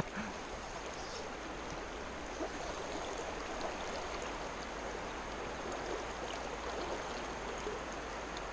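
Creek water running steadily, an even rushing wash with no distinct events.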